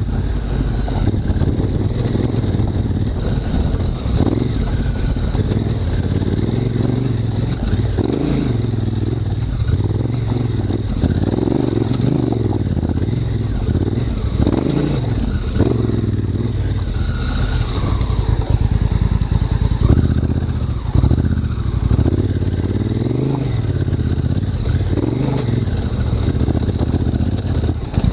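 Honda Africa Twin CRF1000L's parallel-twin engine running under the rider, recorded on the bike, its revs rising and falling again and again as the throttle is opened and closed.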